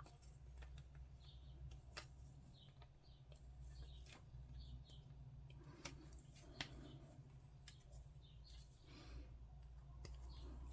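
Near silence with a few faint, sharp snips of hobby sprue clippers cutting a plastic miniature part from its sprue, the clearest about two seconds in and again past the middle, over a steady low hum.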